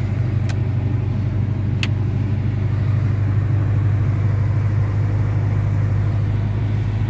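Car engine idling with a steady low hum, and a couple of light clicks in the first two seconds.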